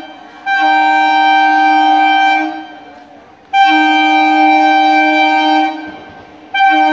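Horn of an approaching electric local (EMU) train, sounded in long, steady blasts of about two seconds each: one starting about half a second in, another about halfway through, and a third starting near the end.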